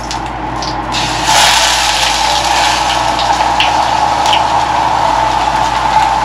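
Oil sizzling in hot frying pans, swelling about a second in, over a steady mechanical hum; chopsticks tick lightly against a metal bowl as egg is beaten.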